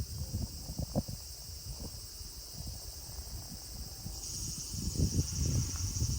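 Evening insect chorus: a steady high-pitched buzzing that grows louder about four seconds in, over irregular low rumbles and thumps.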